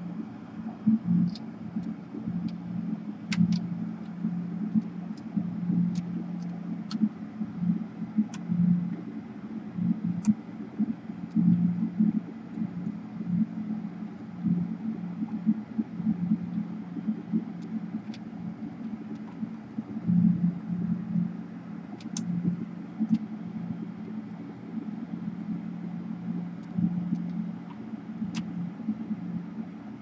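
Exhaust fan running with a steady low hum that swells unevenly. Scattered light clicks come from a screwdriver and wires being handled in a laptop chassis.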